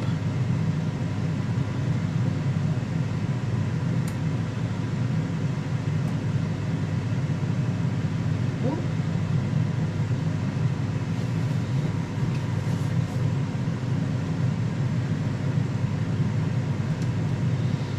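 Ninja dual-drawer air fryer running steadily with its fan on, a constant low whooshing hum, while it preheats.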